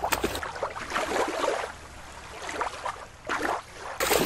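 Shallow water splashing and sloshing as a toy orca is pushed through it by hand. There is a short burst about three seconds in, and a loud splash near the end.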